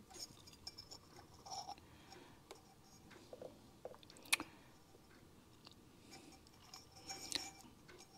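Faint handling sounds of small metal parts: light clicks and scrapes as the ALDA unit's aluminium housing and diaphragm are taken apart by hand, with one sharper click about four seconds in.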